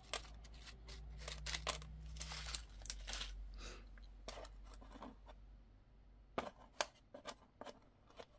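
Quiet handling of beads and their packaging: plastic rustling and a run of light clicks, then several separate sharp little clicks near the end as beads are picked up and set down.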